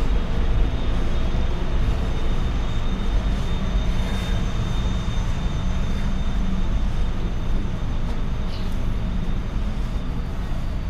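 Steady low rumble with a faint high steady whine: jet aircraft noise heard through the glass walls of an airport jet bridge. A few faint clicks are heard over it.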